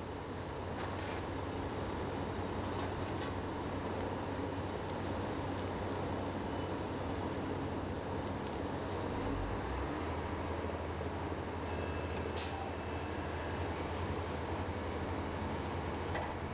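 Fire apparatus engines running steadily while pumping water, a constant low rumble under a wide rushing noise from the fire and the hose streams.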